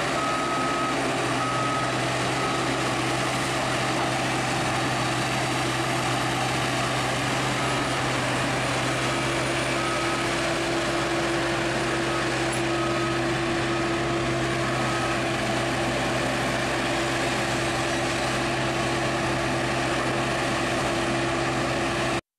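Diesel engine of a wheeled sugarcane grab loader running steadily under work, with a reversing alarm beeping on and off through the first fifteen seconds or so.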